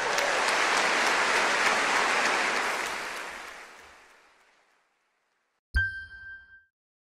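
Audience applause fading away over about four seconds. After a short silence, a single bright chime with a low thud rings briefly: a logo sting.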